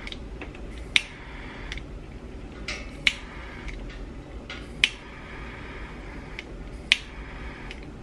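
Four sharp clicks a second or two apart over a low steady hum, from hands working crimp butt connectors and wiring in a car door.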